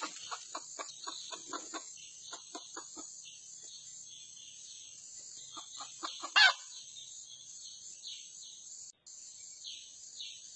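Red junglefowl clucking in quick runs of short calls, with one loud falling squawk about six seconds in. A steady high insect hiss runs behind.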